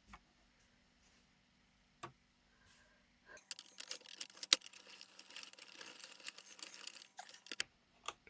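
A plastic circle knitting machine being handled or turned: a couple of single clicks, then about four seconds of dense plastic clicking and scraping that stops abruptly.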